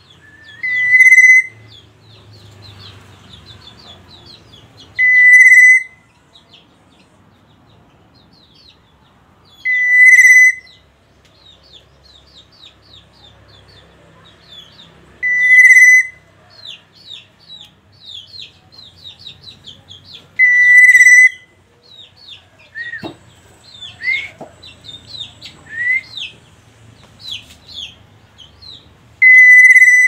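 Black-naped oriole giving a loud, clear whistled note six times, each under a second long, about every five seconds with a longer pause before the last. Fainter quick chirps run between the notes.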